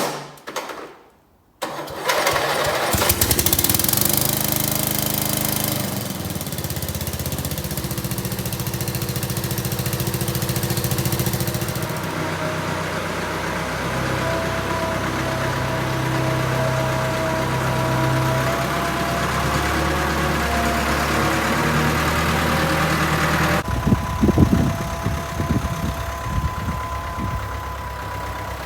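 Toro mower engine cranking and catching about two seconds in, then running steadily, started by bridging two terminals, which bypasses the fault in its starting circuit. Near the end the sound changes abruptly to a quieter engine running, with a few knocks.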